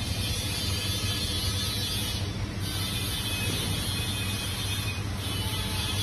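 Steady machinery hum: a low drone with an even hiss above it, unchanging throughout.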